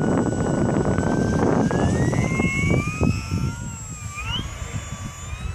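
Electric brushless motor and propeller of an FMS P-51D 1700mm radio-controlled model plane on its takeoff roll: a whine that rises in pitch over the first two and a half seconds or so, then drops and fades as the plane pulls away down the runway, over a rushing noise.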